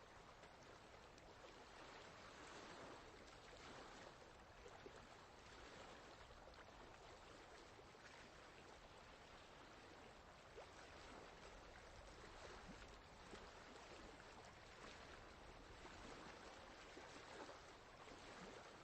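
Faint running water: a steady wash of flowing water with small splashy ticks scattered all through it.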